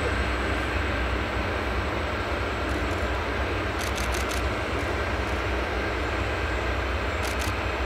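Boeing 747-400 jet running steadily during pushback, with a constant high whine over a low rumble.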